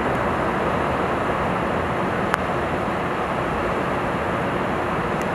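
Steady rushing noise of a Boeing 777-200LR airliner touching down on a rain-soaked runway in heavy rain, with a single sharp click a little over two seconds in.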